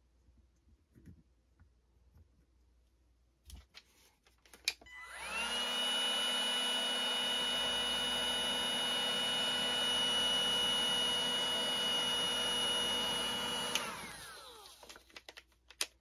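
A DeWalt cordless drill motor spins up about five seconds in, runs at a steady whine for about nine seconds, then shuts off and winds down in falling pitch. A few light handling clicks come before and after it.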